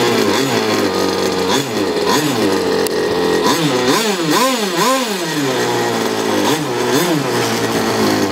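Small two-stroke engine of an RC speedboat running out of the water, idling with a few quick throttle blips that make the pitch rise and fall, two of them close together about four to five seconds in.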